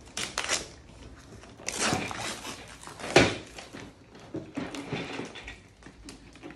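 Wrapping paper and a cardboard toy box being torn at and handled by small hands, heard as several irregular rustling, crinkling bursts. The loudest is a short sharp one about three seconds in.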